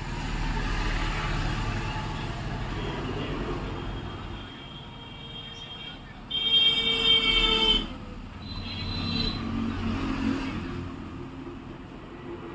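Road traffic passing the shop: a vehicle's engine rumbles by, then a horn sounds loudly for about a second and a half, a little after the middle.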